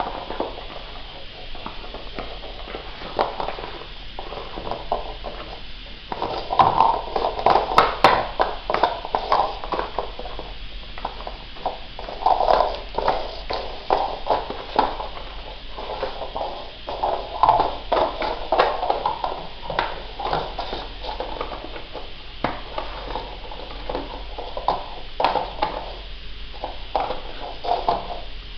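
Shih Tzu puppy's claws clicking and paws scrabbling on a ceramic tile floor as it scampers and spins about in play. There are irregular quick clicks throughout, busiest about a third of the way in.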